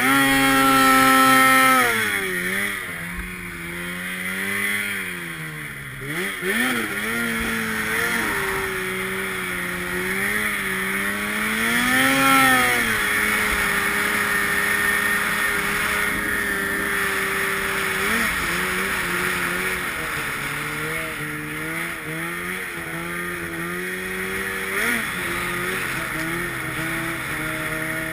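Arctic Cat snowmobile engine under way, its pitch rising and falling with the throttle. It revs high at the start and eases off about two seconds in, swells again around twelve seconds, holds steady for a few seconds, then makes smaller ups and downs, all over a steady hiss.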